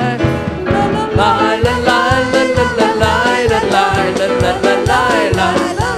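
Live worship band playing an upbeat song with a steady drum beat, and voices singing over it.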